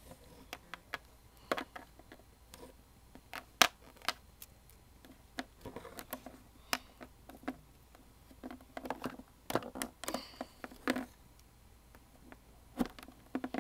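Light clicks and taps of small plastic toy figurines and costume pieces being handled and set down on a plastic play surface, with soft rustling of cloth; one sharper click about three and a half seconds in.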